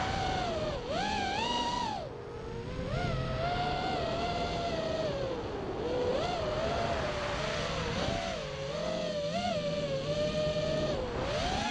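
FPV racing miniquad's brushless motors and propellers whining, the pitch sliding up and down constantly with throttle changes, over the rush of air.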